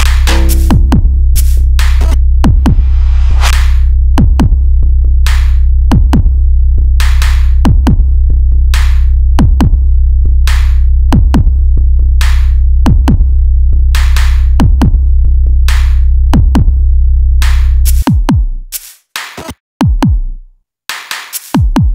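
Electronic background music: a drum-machine beat over a heavy, steady bass. About eighteen seconds in the bass drops out, leaving the drum hits with short gaps between them.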